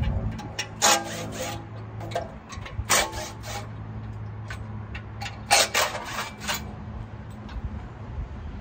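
Short scraping and rubbing noises, a few at a time about a second in, again about three seconds in, and several between five and six and a half seconds in, from an engine lift and its load being shifted by hand, over a steady low hum.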